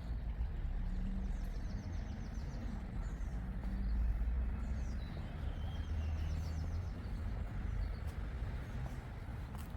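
Outdoor ambience: a steady low rumble with a small bird's short, high trill repeating a few times.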